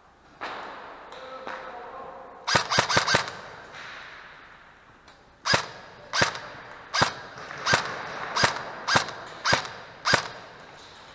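Airsoft gun firing: a quick burst of about six shots, then a run of about eight single shots, each well under a second apart, sharp cracks.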